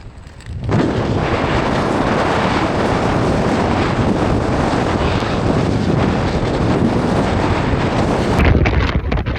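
Strong blizzard wind buffeting the microphone: a loud, steady rushing roar, briefly dropping away at the very start.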